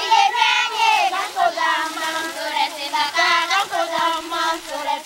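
High young voices singing a song together, one melody line with held and sliding notes.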